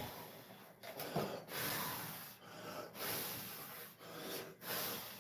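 Hand sanding on fiberglass: rasping rubbing strokes, about one a second, uneven in length and strength.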